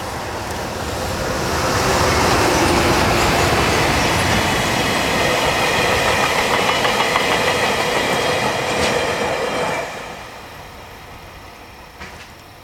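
Freight train of Taki tank wagons rolling past close by, wheels clattering over the rail joints with a steady metallic whine. The sound builds over the first two seconds, holds, then falls away sharply about ten seconds in as the train clears.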